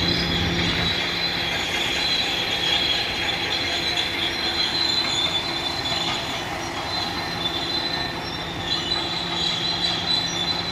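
Bulldozer running, its steel tracks giving a continuous high metallic squeal over the steady hum of the engine.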